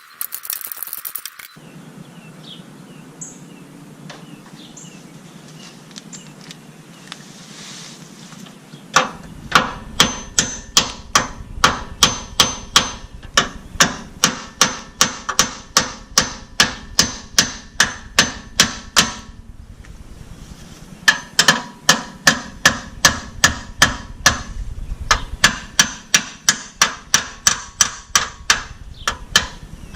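Steady, evenly spaced sharp metallic strikes from hand-tool work on metal, about three a second, starting about nine seconds in, pausing briefly near the middle, then resuming at the same pace. Before they start there are only faint handling sounds.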